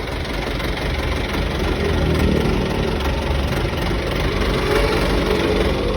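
Thaco Foland truck's engine turning over with a steady, continuous mechanical sound.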